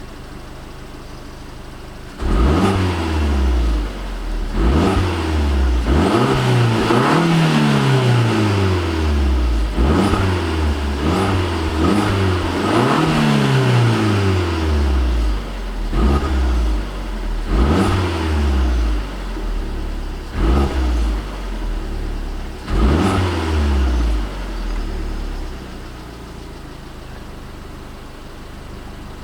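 Alfa Romeo MiTo Quadrifoglio Verde's turbocharged 1.4 four-cylinder petrol engine on its stock exhaust, revved in a string of quick blips from about two seconds in. Each blip rises sharply and falls back, a few held longer. It settles to a steady idle near the end.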